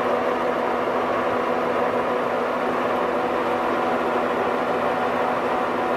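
VDF-Wohlenberg E 800 V heavy-duty lathe running with its chuck turning and no cut being made: a steady whine of several tones from the headstock gearing over a low mechanical hum.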